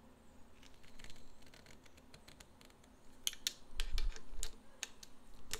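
Screwdriver working a mounting screw of a Singer 15-91 potted motor as it is tightened: a run of sharp, irregular metal clicks and scrapes starting about three seconds in, with a soft knock near the four-second mark.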